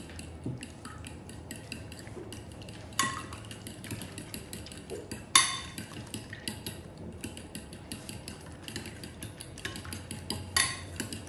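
Metal fork beating eggs in a white ceramic dish: a quick, irregular ticking of the tines against the dish, with a few louder ringing clinks, one about three seconds in, one about five seconds in and one near the end.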